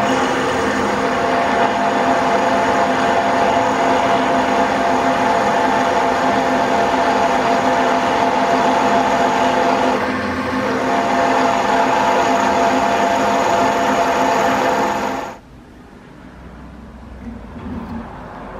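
Bench drill press motor running steadily with a hum of several tones while its bit drills a cross hole through the Pickering governor's main shaft for a taper pin, dipping briefly about ten seconds in. The sound cuts off suddenly about fifteen seconds in, leaving only faint sounds.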